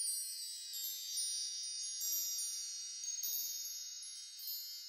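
High-pitched twinkling chimes, many bell-like tones ringing and overlapping with sparkly tinkles on top, fading slowly toward the end.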